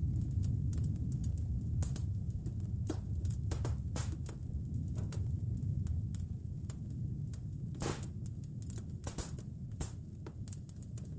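Wood fire crackling, with irregular sharp snaps and pops, a few louder ones, over a steady low rumble.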